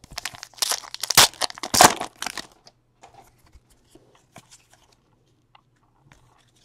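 A baseball card pack's wrapper torn open by hand, crinkling and tearing loudly for about two and a half seconds. Then come light scattered clicks as the cards are handled and flipped through.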